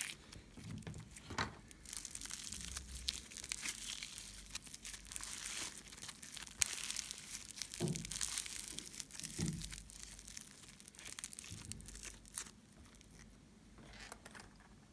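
Crinkling and crackling as slime ingredients are handled and worked, with scattered small clicks throughout and two soft thumps around the middle.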